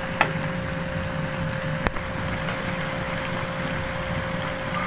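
Spring rolls deep-frying in a pan of hot oil, the oil sizzling and bubbling steadily. Two light clicks of metal tongs against the pan, about a quarter-second in and just before two seconds.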